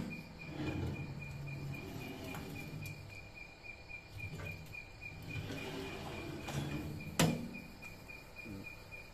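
A switched-off hand-held tile cutter (angle grinder) is rolled along a homemade ball-bearing slide rail, with low rolling rumbles and a sharp knock about seven seconds in. Throughout, an insect chirps in a steady, fast, even, high-pitched pulse.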